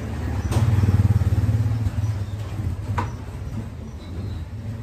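Kawasaki ACK 302 pressure washer's motor and pump running with a low, steady hum that swells about a second in, with no spray, and two sharp clicks, one near the start and one about three seconds in.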